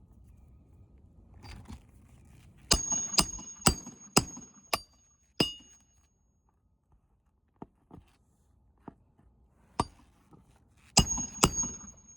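Hammer blows on metal, each with a short high ring, as roofing nails are driven into asphalt shingles: six strikes about two a second, a pause with a few light ticks, then one more and a pair near the end.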